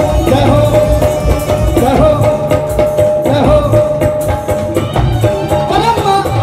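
Live devotional folk music over a loud stage sound system: hand drums keep a steady beat under a sung melody with a long held note.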